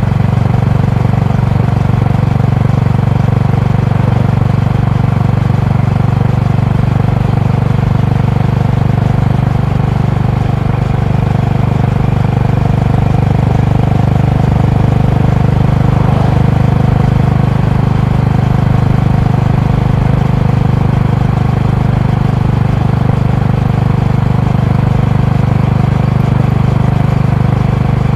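Honda GB350's air-cooled single-cylinder engine and exhaust running at a steady cruise. The low engine note holds nearly constant throughout.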